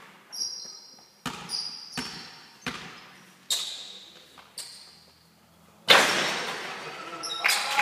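A basketball bouncing on a sports-hall floor, a series of sharp thuds each followed by the hall's echo, with short high squeaks among them. About six seconds in comes a much louder bang that is followed by a couple of seconds of noisy clatter.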